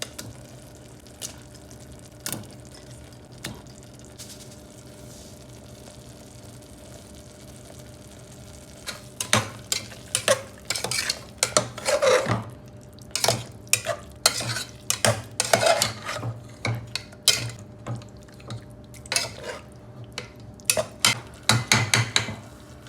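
Food frying in a pan with a faint steady sizzle. From about nine seconds in, a spatula stirs and scrapes against the pan with many sharp clacks.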